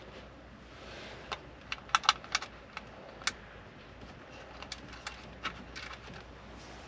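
Scattered light clicks and taps of small screws and a screwdriver working against the plastic dash-kit brackets on a car-stereo head unit, coming at irregular intervals.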